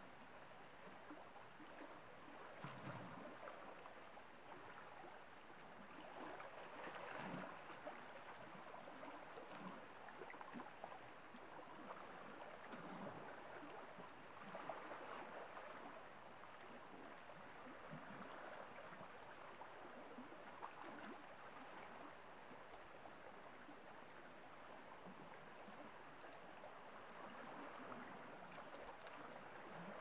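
Faint lapping of small waves from a nearly calm sea against shoreline rocks, with soft splashes swelling and easing every few seconds.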